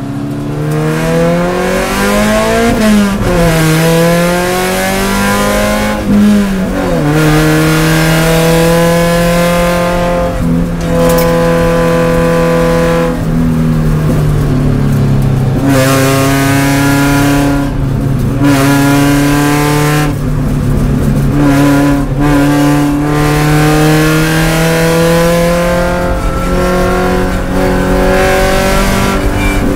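Spec Miata race car's four-cylinder engine heard from inside the cockpit, revving up through the gears with its pitch dropping at each shift and lift, over a steady hiss of tyres on the wet track.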